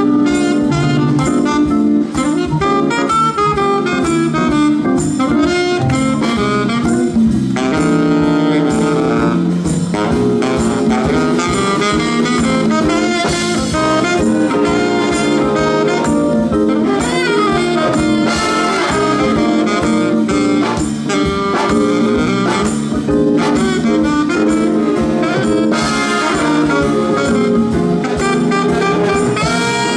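Live jazz-blues band playing an instrumental passage, saxophone and brass leading over a steady drum beat.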